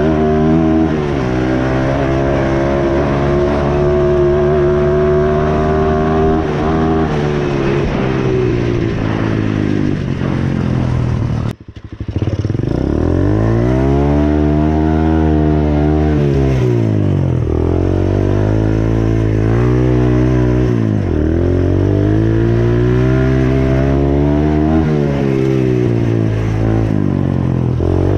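Dirt bike engine running while riding, holding a fairly steady pitch at first, then after a brief sharp break about a third of the way in, revving up and down in several long swells as the throttle is opened and closed.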